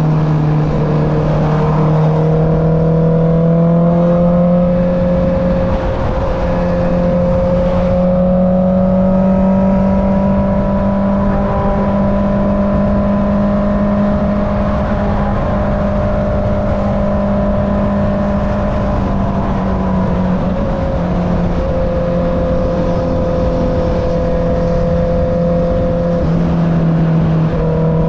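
Honda CB650R's inline-four engine through an Akrapovic exhaust, running at steady cruising revs while riding. The engine note rises slowly over the first few seconds, holds, and drops a little about twenty seconds in.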